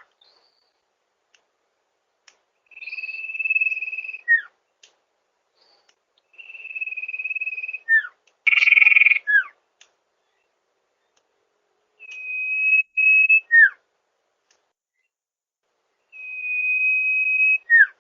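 Sirtu bird calling: a long, steady, high whistle followed by a short falling note, repeated four times, about every four seconds. A louder, harsher note comes near the middle.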